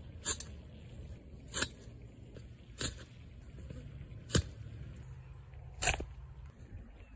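Manual lawn aerator's tines stamped by foot into compacted lawn soil: five short, sharp thumps about a second and a half apart.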